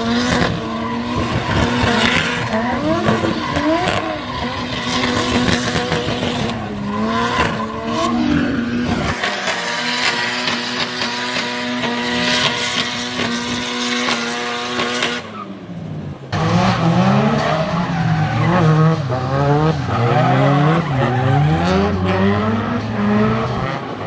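Drift cars' engines revving hard as the cars slide on wet tarmac. The pitch swings up and down with the throttle and is held high for several seconds in the middle, with tyre and spray noise underneath. After a short break about two-thirds of the way through, the revs bounce up and down more quickly.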